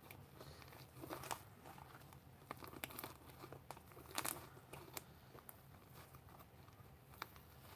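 Homemade white slime being kneaded, squeezed and pulled apart by hand: faint, irregular sticky crackles and small pops, with a few sharper snaps.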